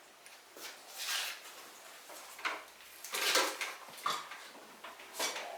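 A handful of short rustling and clattering handling noises, about five within a few seconds, with quiet gaps between them.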